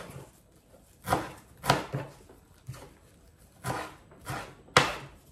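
Chef's knife chopping parsley on a wooden cutting board: about eight separate knife strikes at an uneven pace, each a sharp knock of the blade on the board.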